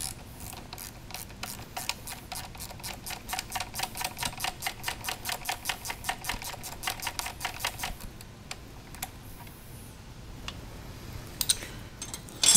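Hand ratchet wrench clicking rapidly and evenly, about five clicks a second, as a motorcycle rearset bolt is backed out; the clicking stops about eight seconds in, and a couple of sharp knocks follow near the end.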